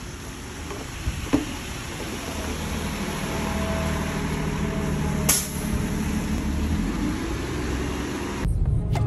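Street traffic on a wet, slushy road: tyres hissing and a bus engine running, growing louder over several seconds as the bus passes.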